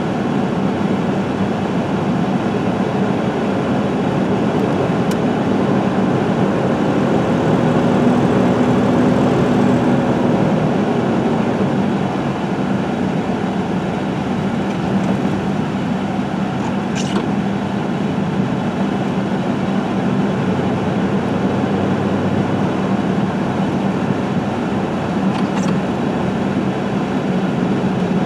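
Engine and road noise heard from inside a moving vehicle's cab, a steady hum that swells slightly about a third of the way in.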